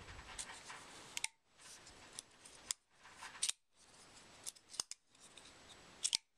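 Kershaw Cyclone folding knife, its SpeedSafe assist switched off, being opened and closed by hand: several sharp metallic clicks as the blade snaps open against its stop and the liner lock engages, then shuts again.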